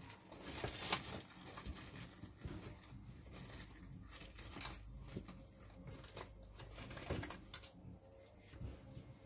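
Someone rummaging through loose resistors and their packets or tape strips in search of the right value: irregular rustling and crinkling with small clicks and knocks, loudest about a second in.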